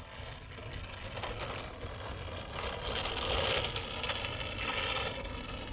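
DJI RoboMaster S1 robot driving over asphalt: a mechanical whirr from its wheel motors and mecanum wheels, getting louder about three seconds in as it passes close, then falling back.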